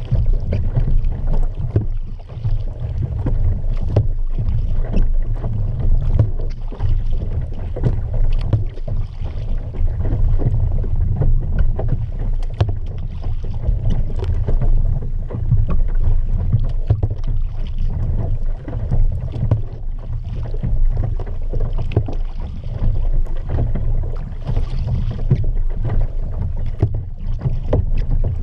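A kayak under way: water splashing and lapping at the hull, over a low, uneven rumble of wind on the microphone.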